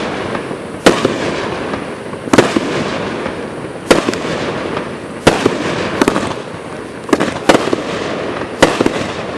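Mad Ox "Rampage In The Sky" consumer firework firing a repeated series of loud shots, about nine sharp bangs roughly one every second, some in quick pairs. A continuous hiss and crackle fills the gaps between them.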